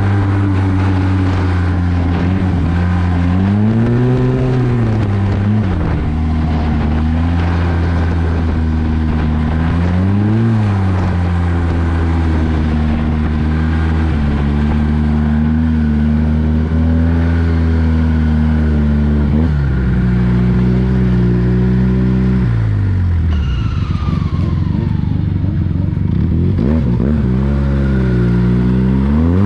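Arctic Cat 1100 Turbo snowmobile's turbocharged three-cylinder four-stroke engine running under throttle on a trail ride. Revs rise and fall briefly twice early on, drop sharply as the throttle is let off about three quarters through, then climb again near the end.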